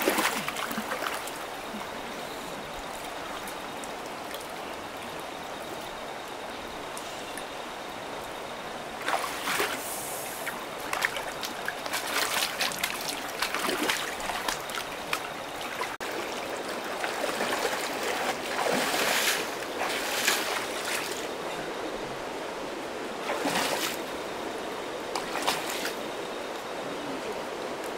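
Water running and trickling steadily, with louder splashing now and then from about nine seconds in.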